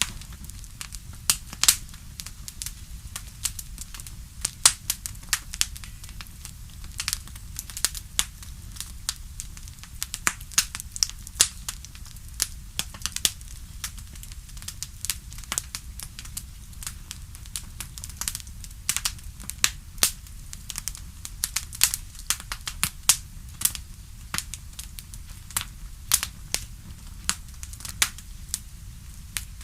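Campfire crackling: irregular sharp pops and snaps from burning wood, several a second, over a low steady rumble.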